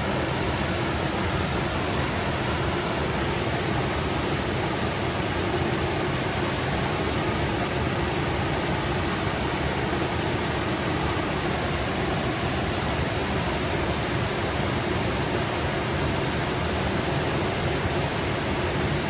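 Small forest brook babbling over rocks, a steady rush of running water.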